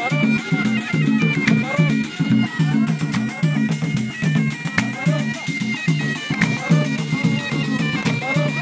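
Live traditional Gulf folk music: a reed wind instrument plays a melody that steps between held notes over a steady beat of hand drums.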